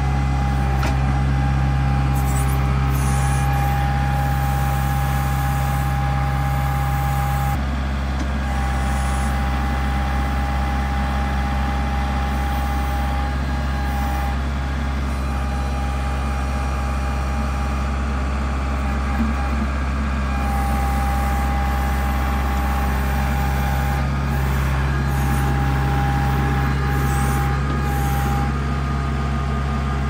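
Kubota compact tractor's diesel engine running steadily while it works a backhoe, with a higher whine that cuts in and out repeatedly.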